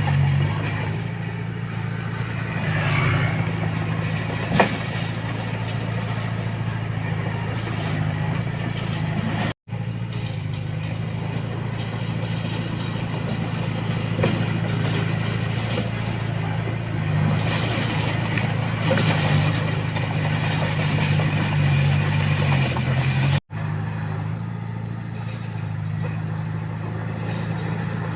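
Komatsu D21A bulldozer's diesel engine running steadily under work, with one sharp knock about four seconds in. The sound cuts out for an instant twice.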